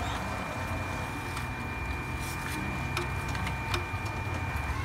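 HP Color LaserJet Pro MFP M177fw colour laser printer running through its start-up initialization: a steady high whine over a low hum, with a few sharp mechanical clicks. The whine stops shortly before the end.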